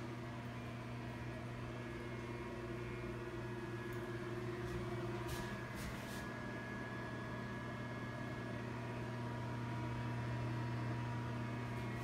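A steady low mechanical hum, like a running fan or motor, with a few faint clicks about five and six seconds in.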